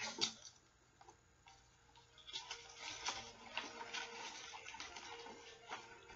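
Light, irregular clicks and taps of cardboard tubes against a plastic soda bottle as the paper-roll crown is handled and adjusted. The clicks start about two seconds in, after a near-silent start.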